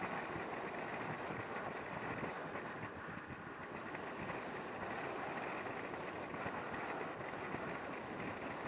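Steady rush of wind over the microphone of a camera on a moving motorcycle, with the ride's road and engine noise underneath, unchanging throughout.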